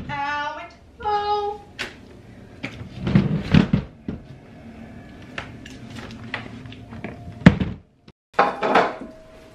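A plastic storage tote carried in through a doorway: scattered knocks and thumps of the tub and door, the sharpest about three quarters of the way through, after two short squeaks at the start.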